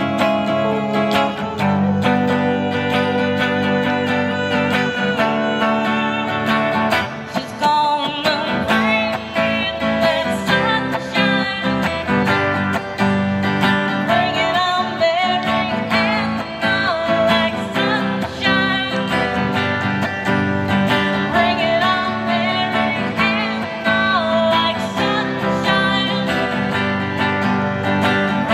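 A hollow-body electric guitar strummed through an amplifier in a live song, with a woman singing over it; the music drops briefly about seven seconds in.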